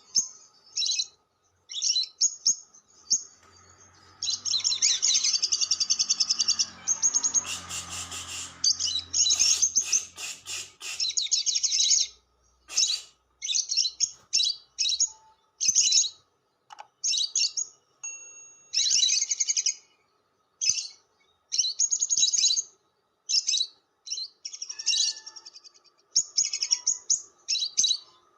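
Lovebird chattering (ngekek) in fast, high-pitched trilling runs. The runs are long in the first half and break into shorter bursts about once a second later, with a few sharp clicks partway through.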